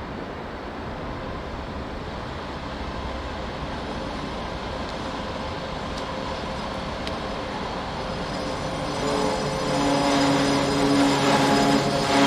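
Train approaching, its running noise on the rails growing steadily louder. About nine seconds in, a steady low hum with several overtones sets in and strengthens.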